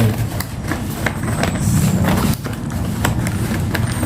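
Irregular light clicks and taps of a new Bluetooth keyboard being handled, several a second, over a steady low background rumble.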